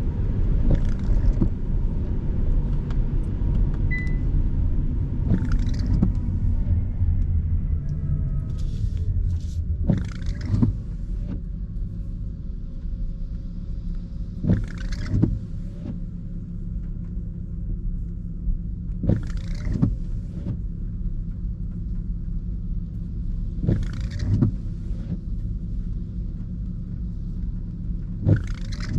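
Inside a car in the rain: steady road and engine rumble, with intermittent windscreen wipers sweeping about every four and a half seconds, each time a quick back-and-forth pair of strokes. Partway through, a drivetrain whine falls in pitch and the rumble eases as the car slows.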